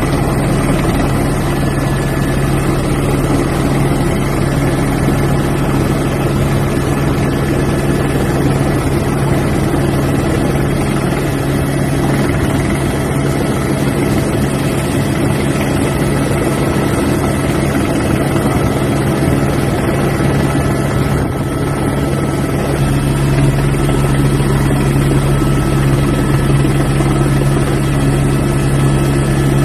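Helicopter running steadily, a continuous drone from its rotor and turbine engine; the low end grows slightly louder about three quarters of the way through.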